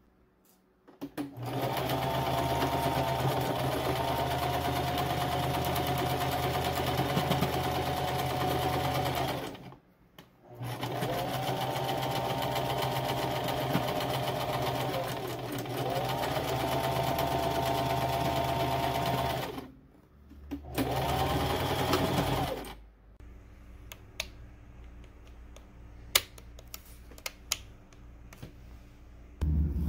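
Singer sewing machine stitching in three runs of several seconds, with short stops between them; the motor's pitch rises as it gets up to speed at each start. It stops about two-thirds of the way through, leaving a few faint clicks.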